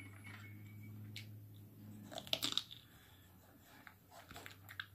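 Faint mouth sounds of a person biting and chewing fried food, with a short louder crunch about two and a half seconds in.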